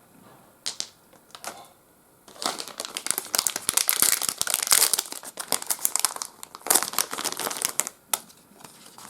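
Trading-card booster pack wrapper being torn open and crinkled. A few light clicks come first, then several seconds of dense crinkling with a short break just past the middle.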